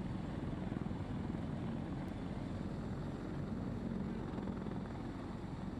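Heavy transport helicopter overhead: a steady, fast beat of rotor blades over continuous engine noise.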